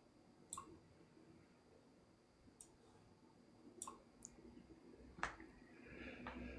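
Faint computer mouse button clicks, about six scattered at uneven intervals, as photos are dragged and dropped; the loudest comes about five seconds in.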